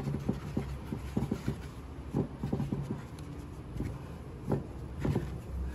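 Hands pressing, patting and turning a ball of pizza dough in a wooden bowl of flour: irregular soft pats and rubbing, over a steady low hum.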